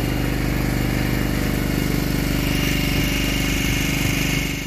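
Engine running steadily aboard a fishing boat, an unbroken tone that holds one pitch.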